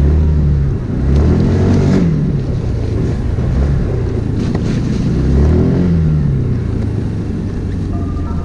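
Small scooter engine running while riding, its pitch rising and falling a couple of times with the throttle.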